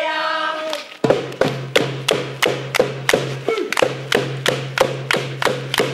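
Sung voices holding a chord break off just under a second in. Then a steady percussive beat of sharp taps starts, about three a second, with a low humming note sounding between the taps.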